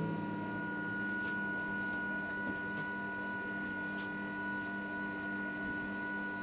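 Philips noodle maker's motor running with a steady high whine as its paddle mixes flour and water into udon dough, with a few faint ticks. Background music with held chords plays along.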